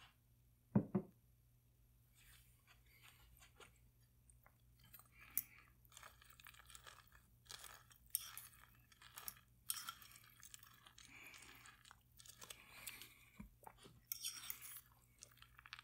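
A metal fork stirring sauce into a bowl of cereal balls in milk, with scattered clinks and scrapes against the bowl and wet crackling from about five seconds in. A dull thump comes about a second in.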